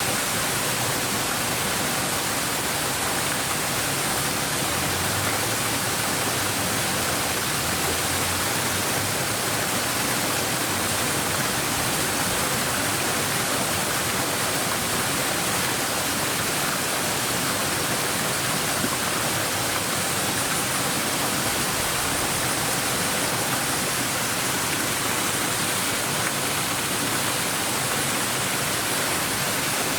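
Shallow stream babbling steadily, a continuous even rush of running water.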